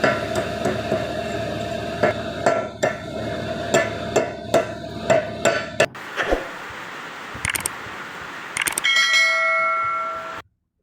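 Hammer strikes on steel: about a dozen sharp metallic knocks over a steady hum in the first six seconds, then a few lighter clicks. Near the end comes a ringing metallic tone that cuts off suddenly.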